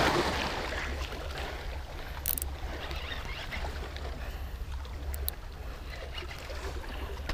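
Wind rumbling on an action camera's microphone over water washing against rocks, with a few faint clicks.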